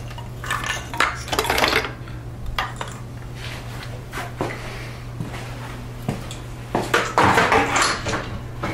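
Metal parts clanking and rattling as the Subaru EJ257's intake manifold, with its fuel rail and harness attached, is handled and set down. The clatter comes in two spells, about half a second in and again around seven seconds in, over a steady low hum.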